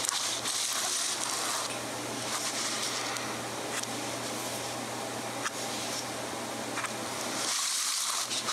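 Steel-tipped gold fountain pen nib scratching across the paper of a writing pad in a few separate strokes, over a steady low hum. Near the end comes a louder rub as the pad is turned on the table.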